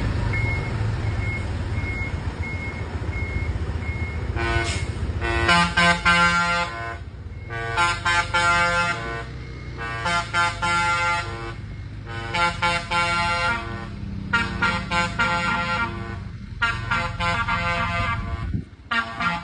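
A large vehicle's multi-tone air horn sounding in a rhythm of about seven blasts, each around a second and a half long, over a running engine. For the first few seconds there is only the engine and a reversing beeper beeping about twice a second.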